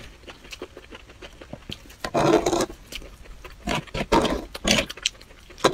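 Close-miked eating sounds: soft, wet chewing clicks, then from about two seconds in several loud, noisy bursts as sauced enoki mushrooms are forked up and eaten.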